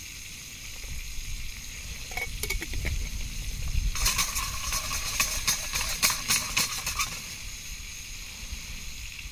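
Steaks sizzling in a pan of butter with garlic and thyme. The sizzle hisses steadily and crackles more loudly for a few seconds about four seconds in.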